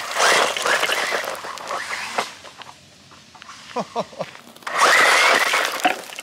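RLAARLO 1/14 brushless 4WD buggy racing past on loose dirt and gravel, its motor whining high and its tyres spraying dirt. There are two passes: one in the first two seconds, and one from about five seconds in after a few short revs.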